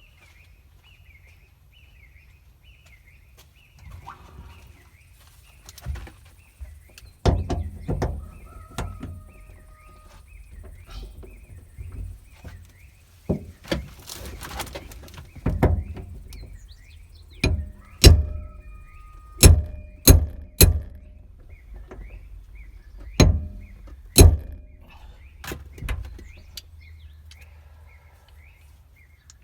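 Irregular knocks and thuds, a few of them loud and close together partway through, with birds chirping steadily in the background.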